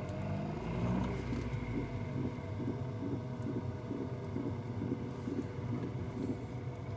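A car's knocking, grating noise heard from the footwell: a repeating knock somewhat under twice a second over a steady low drone.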